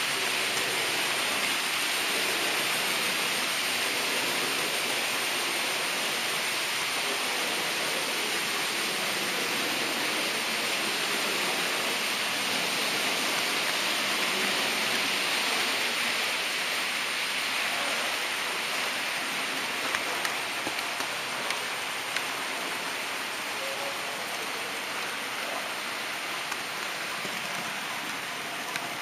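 Steady rushing hiss of an HO-scale model train rolling along the track, picked up by the camera riding on it, with a few faint clicks about two-thirds of the way through.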